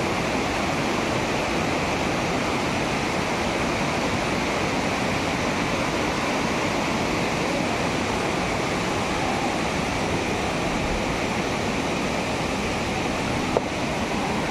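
Steady rushing of a rocky forest river's white-water rapids, with one brief sharp click near the end.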